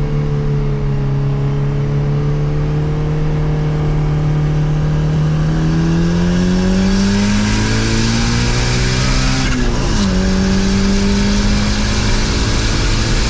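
Turbocharged Honda F20B four-cylinder engine, heard from inside the car: running steadily, then revving up under acceleration with a growing rushing noise. About ten seconds in the revs drop sharply at a gear change and the engine pulls again.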